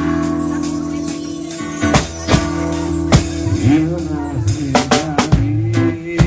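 Worship band music without singing: a drum kit striking regular beats over bass notes and held guitar chords.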